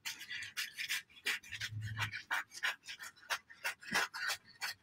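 Scissors cutting through tissue paper: a quick, even run of short crisp snips, about four to five a second.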